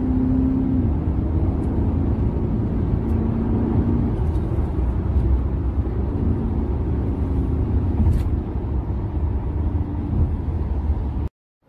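Audi A6 3.0 TDI twin-turbo V6 diesel heard from inside the cabin at highway speed: a steady low rumble of engine and road with an engine drone that rises slightly in pitch about a second in, then comes and goes. The car is running without any fault after replacement of its second turbo's electronic control valve. The sound cuts off abruptly near the end.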